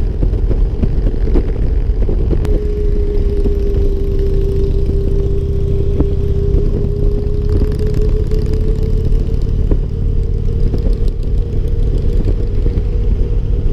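Harley-Davidson Ultra Limited touring motorcycle riding at highway speed: engine and wind noise, with a steady singing whine from the front end that starts a few seconds in, sags slightly in pitch and then creeps back up. The owner suspects worn front wheel bearings.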